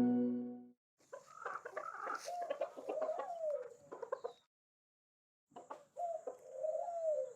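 A song fades out, then a bird gives two bouts of low, wavering calls that rise and fall in pitch, with a faint steady hiss behind them.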